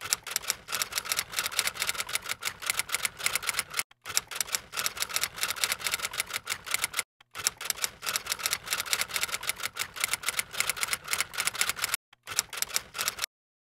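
Typewriter keystroke sound effect: rapid clacking at about eight keys a second, broken by three brief pauses and stopping shortly before the end.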